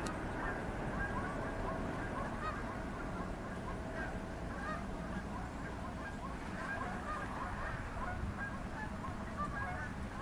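A flock of geese honking excitedly, many short calls overlapping throughout, over a steady low rumble.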